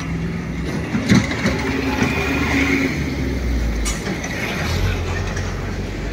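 Large bus engine running, a steady low hum, with a sharp knock about a second in and a lighter click near the four-second mark.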